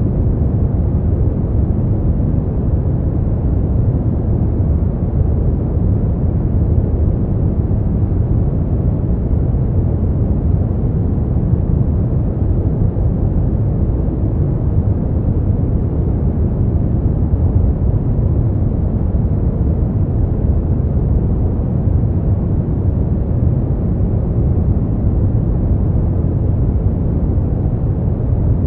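Brown noise: a steady, deep hiss with most of its weight in the low end, unchanging throughout.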